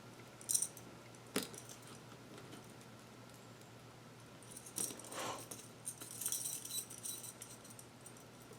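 Faint clicks and light metallic jingling of a small stainless steel quick-release key ring buckle and carabiner being handled and clipped together, with a sharp click about a second and a half in and another near the middle.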